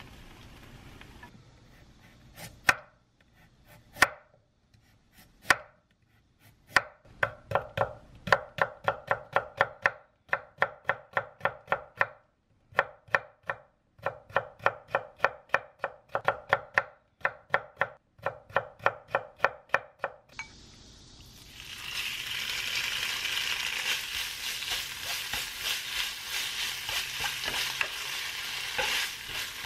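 Chef's knife slicing carrots into thin strips on a wooden cutting board, in quick, even strokes about three a second with short pauses. About twenty seconds in this gives way to a steady sizzle of spicy pork stir-frying in a square pan, stirred with chopsticks.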